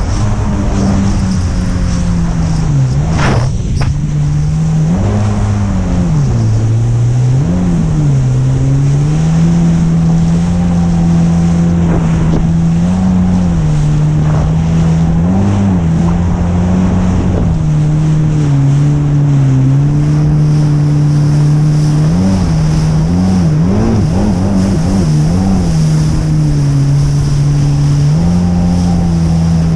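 Jet ski engine running hard through breaking surf, its pitch dropping and rising several times as the throttle is eased off and opened again over the waves, with rushing water and wind on the microphone.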